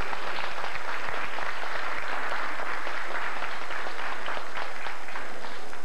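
Audience applauding, a dense clatter of many hands clapping that dies away at the very end.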